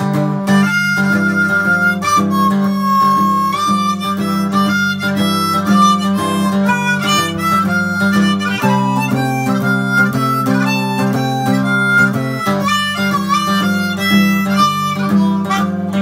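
Harmonica playing long held notes over a guitar picking a repeating low riff, a two-man blues-style jam.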